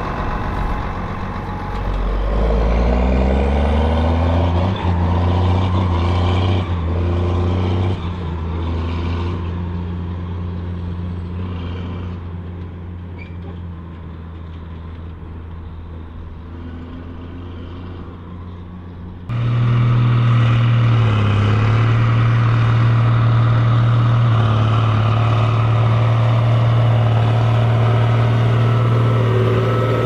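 Case IH Magnum 7240's six-cylinder diesel engine working under load, pulling a big square baler. Its note rises in pitch a couple of seconds in and then holds steady. It grows fainter through the middle, then comes back suddenly louder about two-thirds of the way through and runs steadily.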